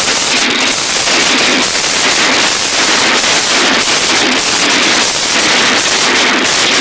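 Slime being squeezed and kneaded by hand, giving a dense, continuous run of crackling and popping.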